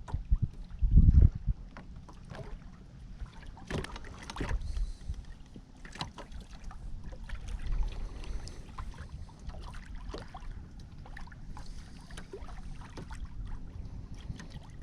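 A small fishing boat moving slowly under an electric trolling motor: a steady low hum, with scattered light clicks and a few low knocks in the first second or so.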